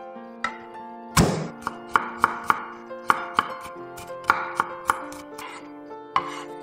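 Chef's knife on a wooden cutting board: a heavy thud as a garlic clove is smashed flat with the blade about a second in, then a run of quick chopping knocks as the garlic is coarsely chopped, over light background music.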